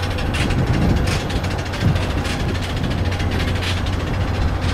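Engines idling on an airport apron: a steady low hum with a faint whining tone, broken by a few short knocks.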